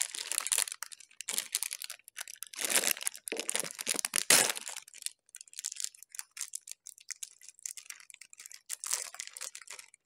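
Plastic wrapper of a kulfi ice-cream bar being torn open and peeled back by hand, crinkling and crackling, heaviest in the first half, then lighter scattered crinkles.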